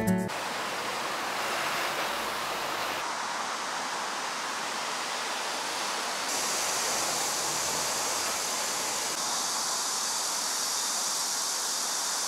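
Steady rushing hiss of outdoor street ambience, with no distinct events. It shifts in tone abruptly a few times.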